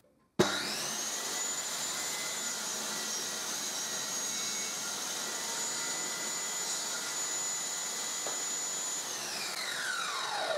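Homemade table saw switched on about half a second in, its motor spinning up within a second to a steady high-pitched whine while a board is crosscut on a crosscut sled, then switched off near the end and winding down with a falling pitch.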